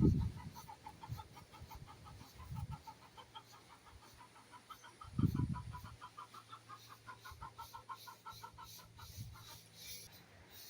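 Chickens clucking in a quick, even run of short notes that stops about nine seconds in, with two loud low thumps, at the start and about five seconds in.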